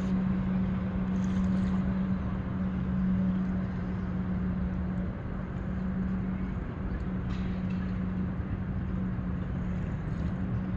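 An engine running steadily at one constant pitch, with a low rumble beneath it.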